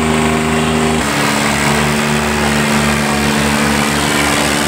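Diesel engines of two farm tractors, an Indo Farm 3055 DI and a New Holland 3630, running hard at full throttle as they pull against each other in a tug-of-war. The steady engine note shifts to a new pitch about a second in.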